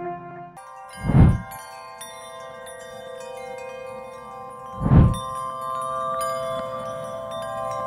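Intro music of sustained, shimmering chime and bell tones, with a rising-and-falling whoosh about a second in and another about five seconds in.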